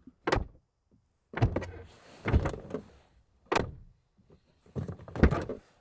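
Driver's door of a 2008 Ford Fusion being pulled shut from inside several times, a series of clunks and thuds. The door takes some force to close.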